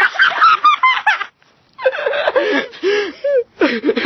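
A young woman laughing and gasping in short breathless bursts after coming out of icy pond water, with a brief pause a little over a second in.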